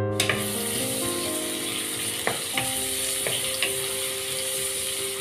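Sliced onions sizzling steadily in hot oil in a nonstick pot, with a wooden spatula stirring and clicking against the pan a few times. Soft background music with held notes plays underneath.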